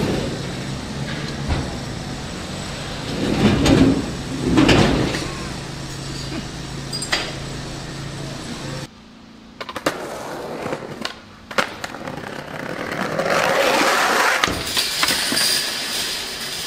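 Skateboard on street paving: two short surges of wheel noise about four seconds in, a few sharp clacks of the board a little past the middle, and a longer stretch of rolling near the end. A steady low hum sits under the first half.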